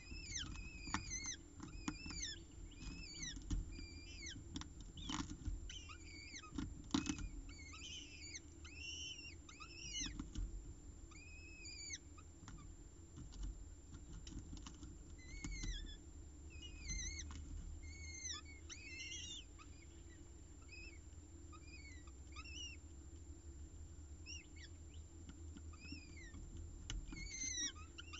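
Peregrine falcon chicks giving thin, high begging chirps while being fed. Each call rises and then falls in pitch, and they come in quick clusters that grow sparser in the second half. Occasional clicks and taps and a steady low hum run underneath.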